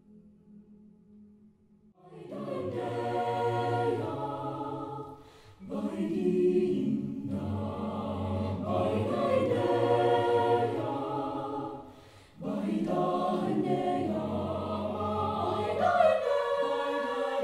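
Mixed-voice choir of sopranos, altos, tenors and basses singing a cappella in three sustained phrases, with short breaths between them. The singing starts about two seconds in, after a faint held tone.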